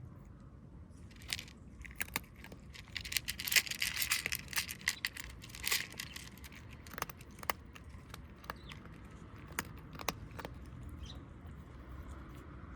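Dry cat food rattling: a burst of small hard clicks and jingling between about one and six seconds in, then scattered single clicks.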